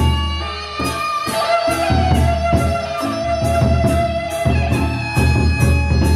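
Lombok gendang beleq ensemble playing: large barrel drums beating deep, hand cymbals clashing in a steady beat about twice a second, with small gongs and a held melodic line over them.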